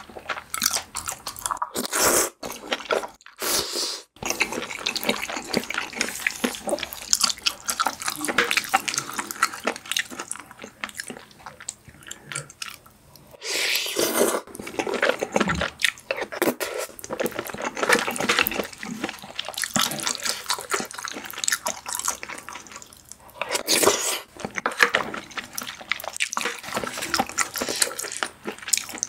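Close-miked, wet mouth sounds of eating creamy pasta: chewing and smacking, with louder noodle slurps about halfway through and again near the end.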